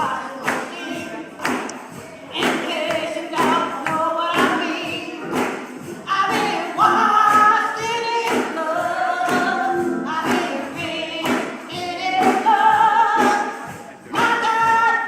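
Gospel singing by a group of voices, over a steady beat of percussive hits about twice a second.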